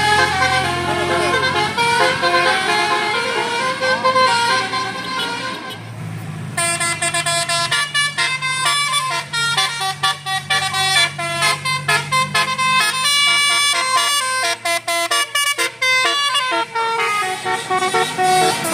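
Bus telolet horn, a multi-tone musical air horn, playing a tune of stepped notes that come faster and more clipped from about six seconds in, with the bus engine running low underneath.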